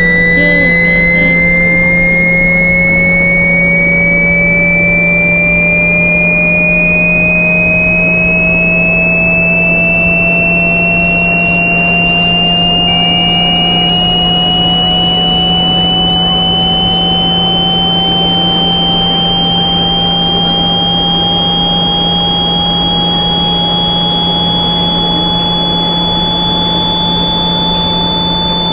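Simulated VVVF train inverter whine in 60-pulse synchronous mode, its pitch rising slowly and steadily as the simulated train accelerates. Under it run a steady low hum and a hiss.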